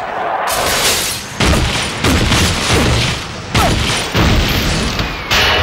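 Cartoon sound effects: a rapid series of loud booming crashes, about seven in five seconds, each hitting hard and then dying away.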